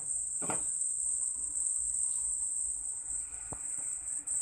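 A glass lid is set down on a frying pan with a short clatter about half a second in, and a single small click follows later. A steady high-pitched whine runs underneath.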